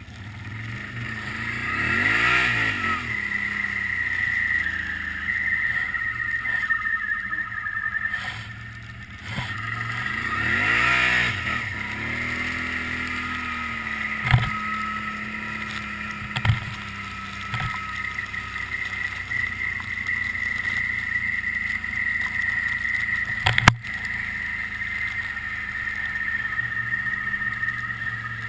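A 2009 Can-Am Outlander 800 Max ATV's Rotax V-twin engine revving up and back down twice in the first dozen seconds, then running at a steady speed, over a steady high whine. A few sharp knocks come through, the loudest about 24 seconds in.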